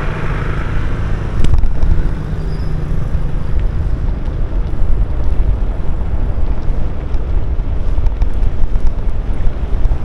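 Wind buffeting the microphone while cycling: a loud, steady low rumble, with one sharp click about a second and a half in.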